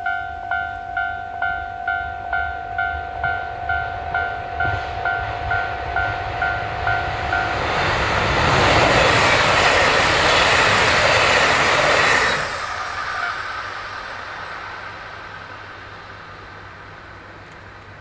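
Japanese level-crossing alarm dinging about twice a second, stopping about seven and a half seconds in. A KiHa 261 series diesel express train then passes the crossing, loud for about five seconds before dropping off suddenly and fading away.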